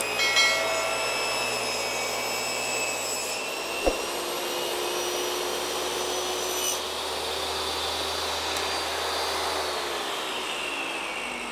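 DeWalt table saw running and ripping a half-inch strip off a 1x board fed with a push stick, a steady motor whine over the hiss of the cut. There is one sharp knock about four seconds in. Near the end the whine falls in pitch and the sound fades as the blade spins down.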